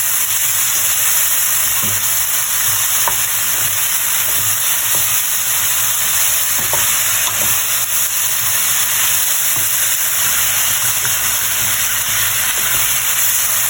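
Food frying in hot oil in a pan, with a loud steady sizzle. A few light clicks of a spatula stirring come through in the first half.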